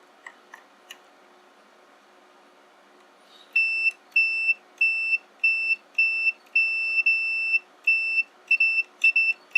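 A multimeter's continuity beeper sounding a high steady tone in about a dozen beeps of uneven length, starting about three and a half seconds in, each time a keyboard key switch is pressed closed between the test leads: the number 2 key's switch is making contact and works. A couple of faint clicks come earlier as the leads are placed.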